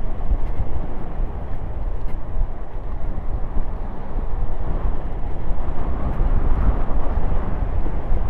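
Wind rushing over the microphone of a rider's camera on a fast downhill run on a non-motorised Trottibike scooter. It is a steady, loud, low rumble mixed with the tyres rolling on asphalt.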